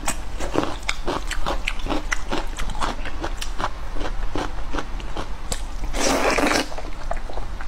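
Close-miked noodle eating: wet slurping and chewing, about two or three short smacking clicks a second, with one longer, louder slurp about six seconds in as a mouthful of noodles is drawn in.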